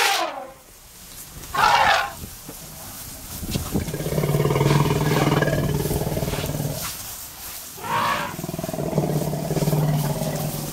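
African elephants calling at close range. There are short trumpet blasts at the start, about two seconds in and about eight seconds in, and two longer, deeper roars between them, from about four to seven seconds and from about nine to ten seconds.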